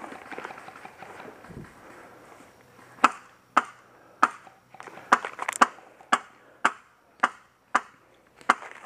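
Airsoft rifle firing single shots on semi-auto: about ten sharp cracks, roughly two a second, starting about three seconds in.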